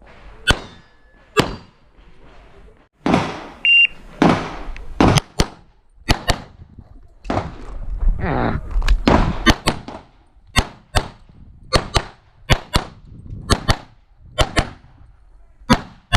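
Handgun shots fired in an IPSC practical-shooting stage, mostly as quick pairs of double taps, with a few stretches of noise between the strings of fire.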